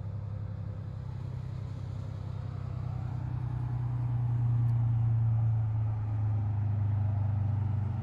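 Tracked military vehicle engine running: a steady, low drone that grows louder about halfway through.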